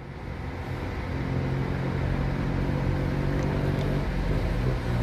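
Diesel engine of a Mercedes-Benz O500 RSD double-decker coach running as the coach drives in. Its steady low hum grows louder over the first second or so, then holds.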